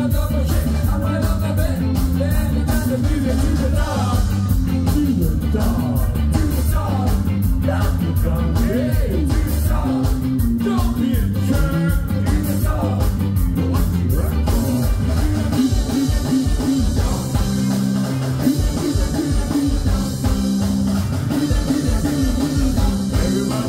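Live ska band playing loud through a PA, with vocals over drums, guitars and keyboard.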